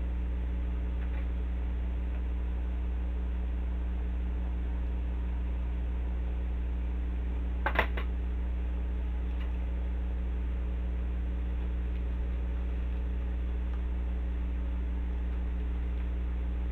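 Steady electric hum of a small desk fan running, with one brief handling rustle about eight seconds in.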